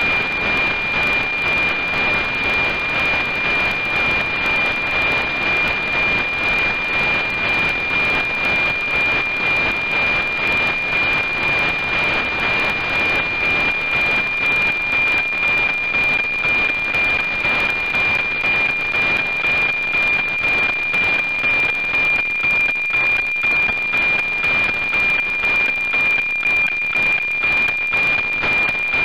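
NOAA 19 weather satellite's APT image signal, received on 137.100 MHz and demodulated to audio: a steady 2.4 kHz whistle in heavy static, pulsing about twice a second as image lines are sent.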